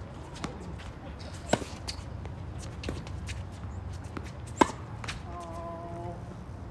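A ball being hit back and forth in a rally: two sharp, loud hits about three seconds apart, with fainter knocks and bounces between them. A short, steady squeal sounds about five seconds in.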